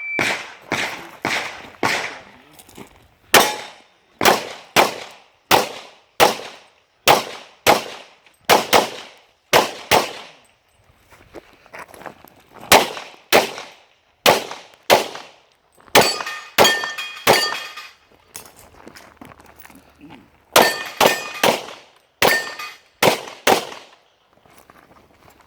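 Rapid pistol fire, about two shots a second, with a pause of roughly two seconds near the middle. In the later strings the bullets hit steel plates, which ring with a clear clang after the shots.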